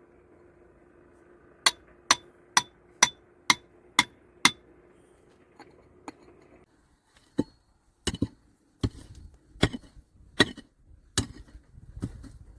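Hammer blows on stone: a quick run of seven sharp, ringing strikes a little over two a second, then, after a short pause, a slower, irregular series of duller knocks.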